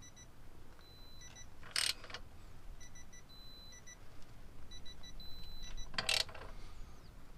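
Digital torque wrench adapter beeping as the differential cover bolts are tightened to 32 ft-lb: runs of short high beeps and three longer steady tones, the long tone signalling the set torque has been reached. Two short rasping noises from the wrench, about four seconds apart.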